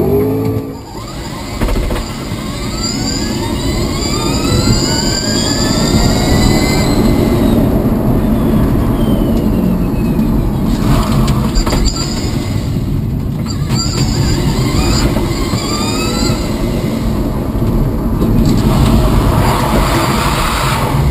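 Quimera AEDC all-electric drift car heard from inside the cockpit: its electric motors give a whine that rises in pitch in long sweeps, twice, as the car accelerates. Under it runs a loud steady rush of tyre and road noise, with a few brief knocks about halfway through.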